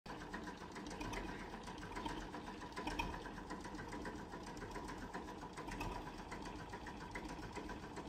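Faint engine running with a rapid, even ticking.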